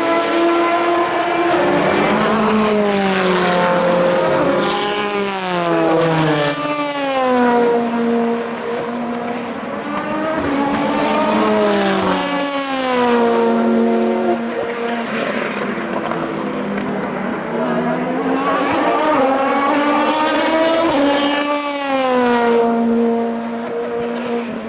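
Several race cars passing one after another at speed. Their engines rise and step in pitch through gear changes, and each note drops as the car goes by.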